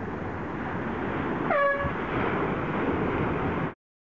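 A race committee's air horn gives one short blast about a second and a half in, the signal that a boat has crossed the finish line. It sounds over a steady rush of wind and water. Near the end all sound cuts off suddenly.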